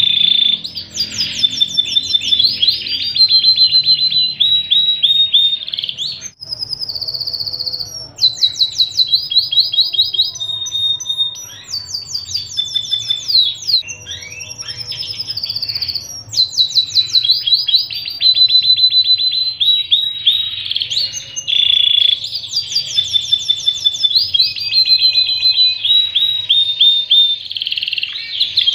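Domestic canary singing a long, continuous song of rapid trills and rolls mixed with held whistled notes, with only brief breaks, one about six seconds in.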